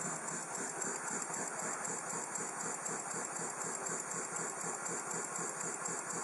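Model horizontal mill engine (Stew Hart's "Dads & Lads" design) running steadily, beating out a rapid, even rhythm with a light mechanical rattle.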